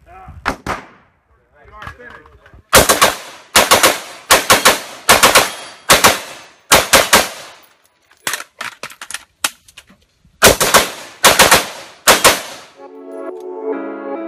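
AR-15-style rifles firing rapid strings of shots, mostly in quick groups of two to four with short pauses between, each shot sharp with a short echo. About 13 seconds in the shooting stops and soft ambient music begins.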